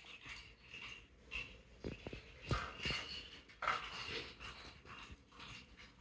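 Amazon parrot making quiet, short breathy vocal sounds in an irregular string.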